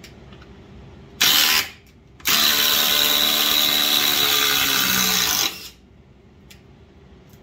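DeWalt DCF840 cordless impact driver driving a 6-inch TimberLOK screw into stacked lumber. It gives a short burst about a second in, stops briefly, then hammers steadily for about three seconds, dropping slightly in pitch near the end before it stops.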